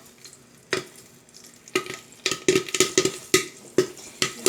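Popcorn kernels popping in a pan on the stove: scattered sharp pops, only one or two at first, then coming thick and irregular from about two seconds in.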